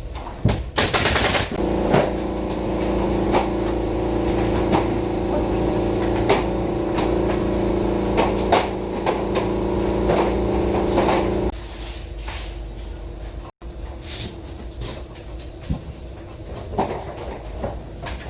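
Sharp cracks from a pneumatic nailer firing one at a time every second or so, over a machine's steady hum that stops suddenly after about ten seconds. A short loud hiss sounds about a second in.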